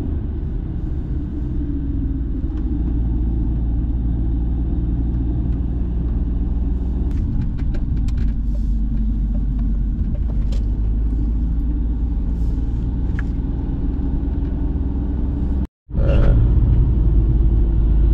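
Steady engine and road rumble of a car driving, heard from inside the cabin. A few faint clicks come partway through, and the sound cuts out for a moment near the end before it resumes.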